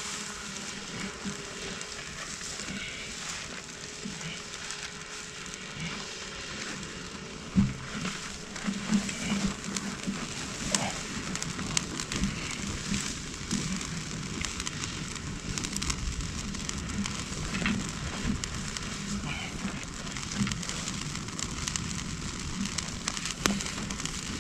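Wood fire of stacked logs with green pine boughs laid on top, crackling and hissing as it catches. The pops become thicker and louder about a third of the way in, with one sharp loud crack.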